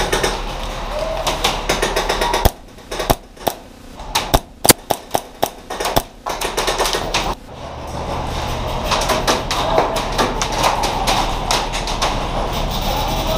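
Airsoft guns firing: fast rattling streams of clicking shots, with a quieter stretch in the middle broken by single sharp shots.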